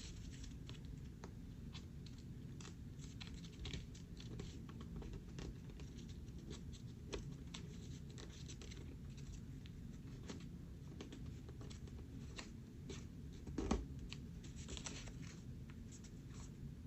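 Sheet of paper being folded and creased by hand: soft rustling, scratching and crinkling with many small ticks as the folds are pressed down, and one louder knock about three-quarters of the way through.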